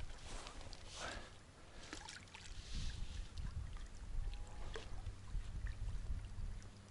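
Faint water splashing and dripping as a hooked crucian carp is brought in and lifted from the water, with a few small handling ticks.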